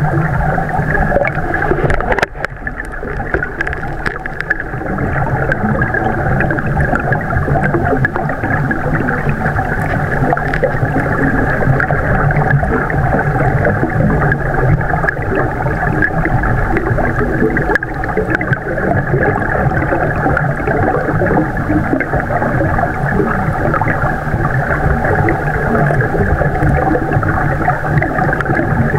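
Steady, muffled underwater noise picked up by a submerged camera in a flooded cave: a dull rushing and rumbling with no high end, dipping briefly about two seconds in.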